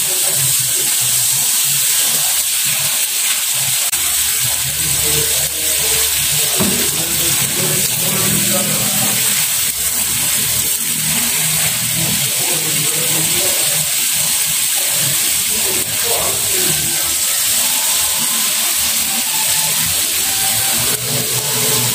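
Tempe and salted fish in chilli sauce sizzling with a steady hiss as they simmer in a small frying pan on a gas burner, stirred now and then with a silicone spatula. A low rumble runs underneath.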